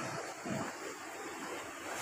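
Steady street background noise: an even hiss with no distinct events.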